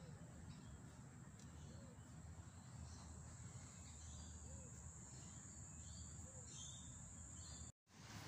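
Near silence: faint background hum with a steady high-pitched whine and a few faint, widely spaced chirps. The sound cuts out completely for a moment near the end.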